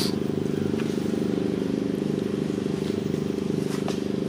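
Steady low drone of an engine running, unchanging throughout, with a few faint clicks over it.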